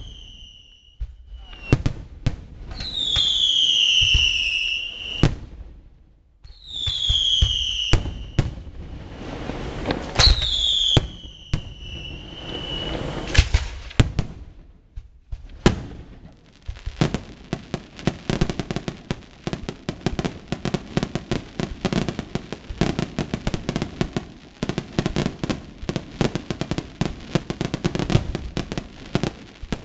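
Aerial fireworks display. In the first half, scattered shell bangs come with four loud whistles, each falling in pitch over a second or two. From a little past halfway comes a dense, rapid barrage of bangs and crackles.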